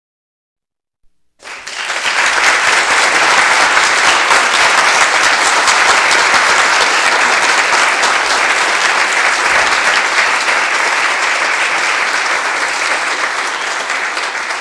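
Crowd applause: a dense, even clapping that begins after about a second and a half of silence and eases off near the end.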